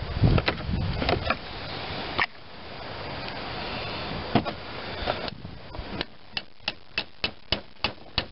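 Light hammer taps, about three a second, seating a new bearing cap into the end frame of a Delco-Remy starter-generator. Before them come knocks and clunks of parts and tools being handled.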